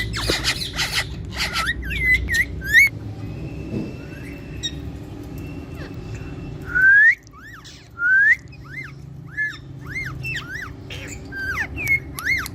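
Green parrots calling: harsh squawks in the first few seconds, then, after a quieter moment, two loud rising whistles about halfway through, followed by a quick run of short arched whistling calls.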